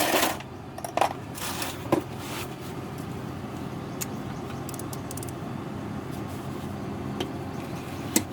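Metal hand tools clinking and scraping: a socket and 1/4-inch drive ratchet being fitted and worked on a bolt, with a few sharp clinks about a second apart over a steady low hum.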